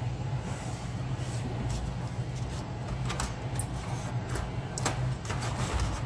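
A small screwdriver turning out a laptop screw with scattered light clicks, then the laptop's optical drive scraping as it slides out of its bay near the end, over a steady low hum.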